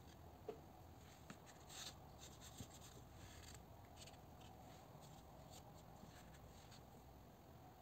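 Near silence: quiet room tone with a few faint clicks and a brief soft rustle about two seconds in.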